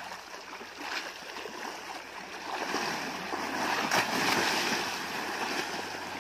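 River water splashing and churning as an Asian elephant rolls and thrashes in the shallows. It is heaviest in the middle, with one sharp splash about four seconds in.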